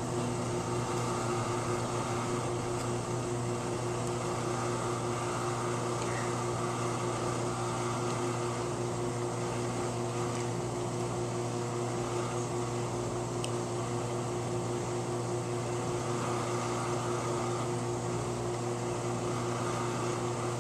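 Steady mechanical hum with a low drone and a steady mid-pitched tone over faint hiss, unchanging throughout, with a few faint clicks.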